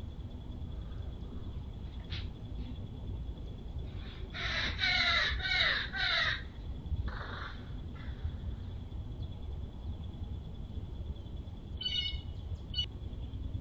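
A crow cawing four times in a quick series, then once more, more faintly.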